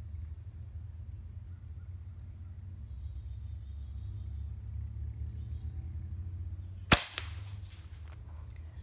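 A single shot from a Hatsan Nova QE .25-calibre pre-charged pneumatic air rifle with a sound moderator: one sharp, short crack about seven seconds in, followed a moment later by a fainter click. Insects chirr steadily in the background.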